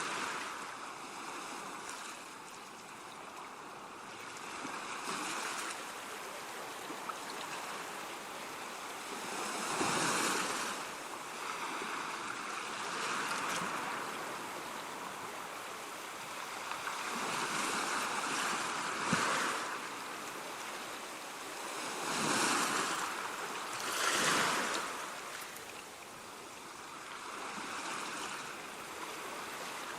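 Ocean waves washing onto a shore, a steady surf hiss that swells with each breaking wave every few seconds.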